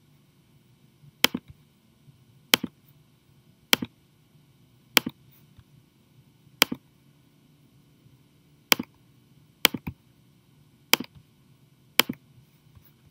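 Computer mouse button clicking nine times, roughly once a second, each click a sharp quick double tick of press and release, as model edges are picked one by one in CAD software.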